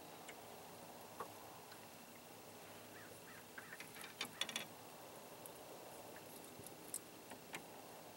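Faint water lapping against the side of a small boat, with scattered light clicks and drips, a cluster of them about four seconds in.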